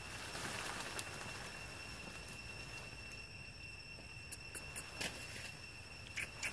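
Steady high insect drone, with light rustling and a few short clicks and snaps as long-tailed macaques move and feed among leafy branches.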